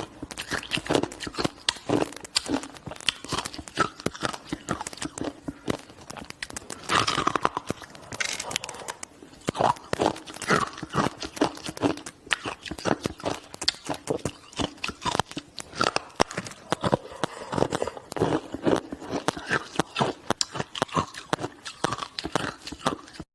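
A person biting and chewing hard, crunchy shaved ice: a dense, continuous run of crisp crunches and crackles.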